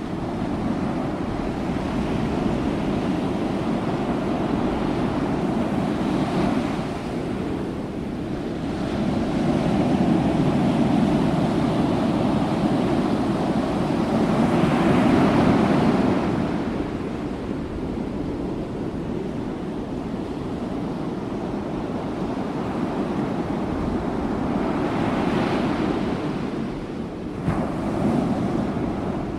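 Ocean surf with wind on the microphone, a steady rushing noise that swells louder a few times, most of all around the middle. A short bump near the end.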